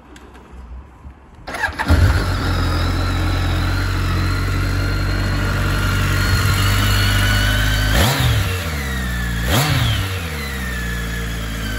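2010 BMW K1300R's 1293 cc inline-four engine starting about a second and a half in and settling into a steady idle. Near the end the throttle is blipped twice, the revs rising sharply and falling back each time.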